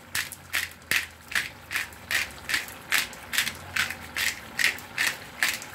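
Hand-twisted pepper mill grinding pepper: an even run of short rasping, ratchet-like grinding strokes, about two and a half a second.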